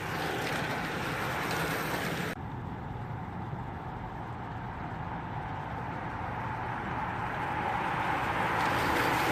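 Road racing bicycles passing in a steady rush of tyre and drivetrain hum, growing louder toward the end. The high hiss drops away abruptly about two seconds in.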